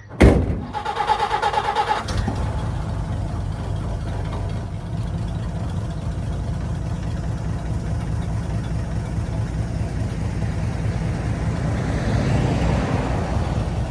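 1952 Dodge Wayfarer's flathead straight-six being started: a sudden loud burst, about two seconds of rapid pulsing as it cranks and catches, then the engine idling steadily.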